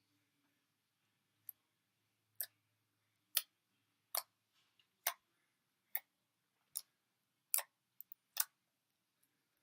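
A series of short, sharp clicks, roughly one a second, with near silence between them.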